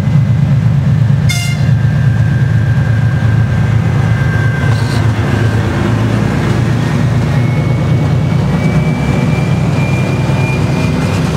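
A 2TE10-series two-section diesel freight locomotive passing close by, its diesel engines running with a heavy, steady drone, and a brief high toot about a second in. Its freight wagons then roll past, with a thin squeal slowly rising in pitch in the second half.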